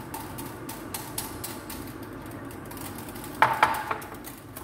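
Utensil stirring and ticking against the sides of a Pyrex glass jug and a cooking pot, with two loud ringing metal clinks about three and a half seconds in.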